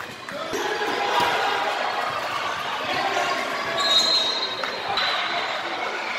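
Volleyball gym between rallies: players' voices echo through a large hall, and a ball thuds a few times on the hardwood floor. About four seconds in comes a brief shrill tone, the loudest moment.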